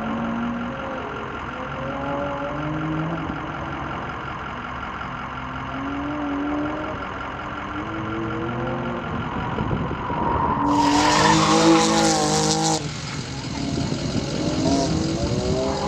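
A car's engine revving up and easing off again and again as it accelerates and brakes through an autocross cone course. About eleven seconds in, a loud rush of tyre skid noise rises over the engine for about two seconds as the car hard-corners closer by.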